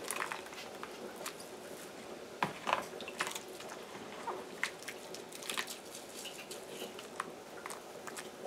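Hands squeezing wet grated coconut in a plastic bowl of water to press out coconut milk: faint, irregular squelches and drips.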